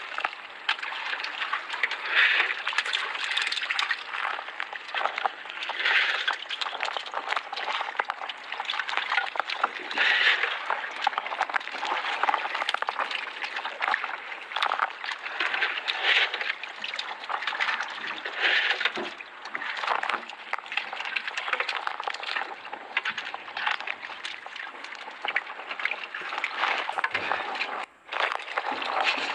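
Water splashing and sloshing, with irregular louder surges every few seconds and many small knocks and clicks through it.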